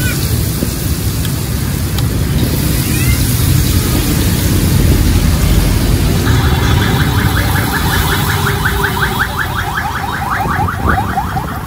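Steady rumble of road traffic. From about six seconds in, a vehicle alarm warbles in fast rising chirps, about seven a second, stopping shortly before the end.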